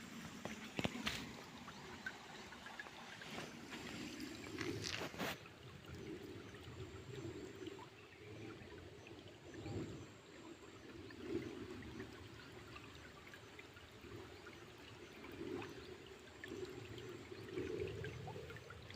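Low, steady sound of flowing water with a wavering gurgle, and a couple of sharp knocks in the first few seconds.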